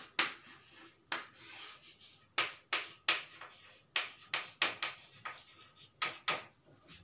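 Chalk writing on a chalkboard: a run of short, sharp taps and scrapes at an uneven pace as an equation is chalked up.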